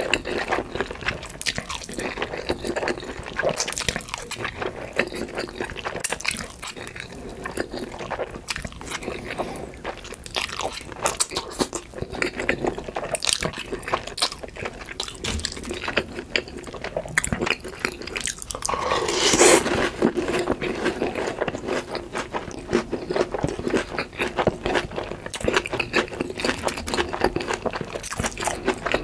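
Close-miked eating: a person chewing and crunching crispy fried food with spicy noodles, with many small crisp crackles and wet mouth sounds. One louder, longer sound comes just before two-thirds of the way through.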